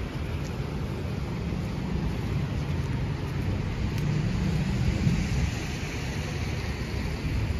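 Wet city street ambience: steady traffic noise over a low rumble, with a hiss of tyres on the wet road swelling about halfway through.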